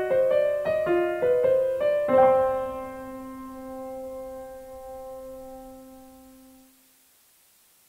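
Piano music: a quick run of notes ending on a chord about two seconds in, which is left to ring and fade away.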